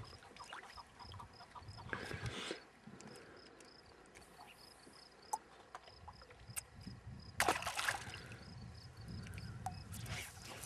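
Water splashing and sloshing in three short bursts, the loudest about halfway through, over a faint high chirp repeating about three times a second.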